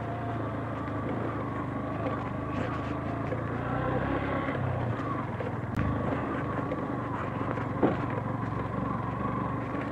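Motorcycle engine running steadily at low speed over a rocky, gravel-strewn off-road track. There is a sharp knock about six seconds in and another about two seconds later.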